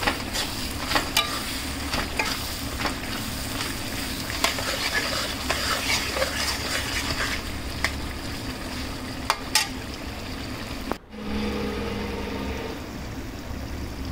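Chicken, onion and capsicum masala sizzling in a pan while a metal spatula stirs it, clicking and scraping against the pan. The sound drops out for a moment about eleven seconds in, then resumes quieter.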